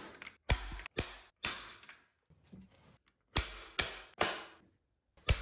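A PowerShot staple gun firing staples through carpet into a wooden shelf: about seven sharp snaps, three in quick succession, a pause of about two seconds, then three more and one near the end.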